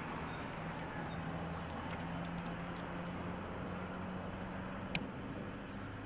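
Steady road-traffic noise with a low, even engine hum, and a single sharp click about five seconds in.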